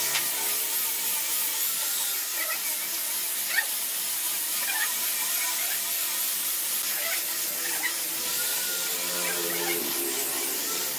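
A power tool working wood, running steadily with a high hiss and a few light clicks.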